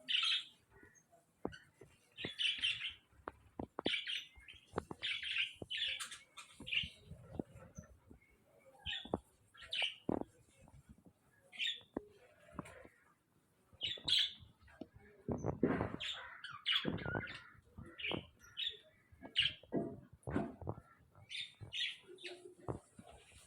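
Australian parrots chirping and squawking in short, repeated calls, with sharp clicks between them and a louder noisy rustle about two-thirds of the way through.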